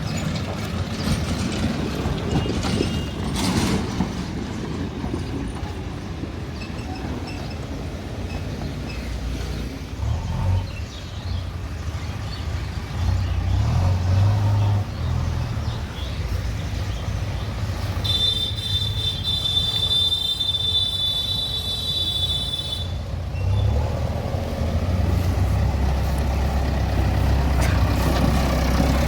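Diesel engines of a backhoe loader and farm tractors running, the engine note swelling and easing as they work. Past the middle, a high steady whine sounds for about five seconds.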